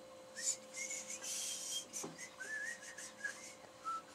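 Wood lathe running with a steady hum while a gouge takes short, hissing hollowing cuts in the spinning oak blank. Over it, a person whistles a few short wavering notes.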